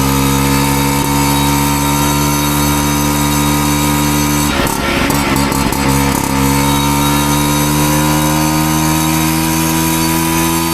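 Piaggio Ciao's 50cc two-stroke single-cylinder engine idling through an aftermarket Giannelli expansion-chamber exhaust as it warms up, the idle slowly climbing. About halfway through there is a short rough, uneven patch with some clatter before the steady idle returns.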